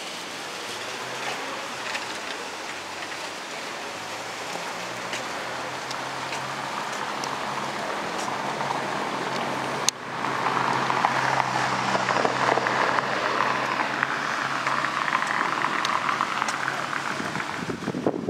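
Steady rushing noise of wind on a handheld camera's microphone outdoors on a town street. There is a sudden click about ten seconds in, after which the rush is louder and brighter.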